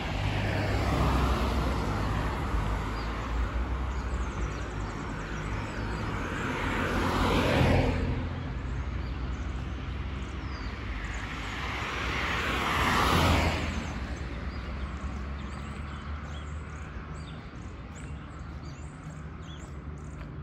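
Road traffic: two cars pass one after the other, each a swell of tyre and engine noise that builds and then falls away quickly, the first about a third of the way in and the second past the middle, over a low rumble of more distant traffic. Faint bird chirps come through near the end.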